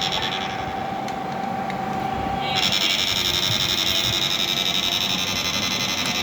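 Electric fishing inverter running under load: a steady electrical buzz with a high whine. The whine thins out just after the start and comes back sharply about two and a half seconds in.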